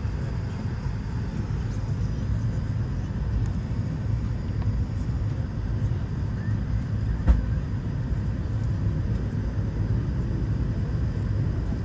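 Steady low rumble inside a parked airliner's cabin, with one short knock about seven seconds in.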